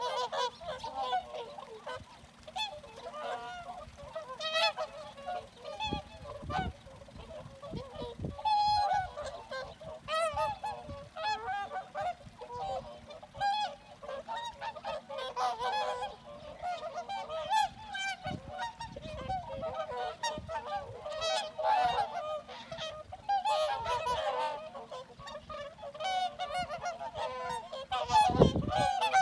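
A flock of swans calling continuously, many overlapping honking calls. A few low thumps, the loudest near the end.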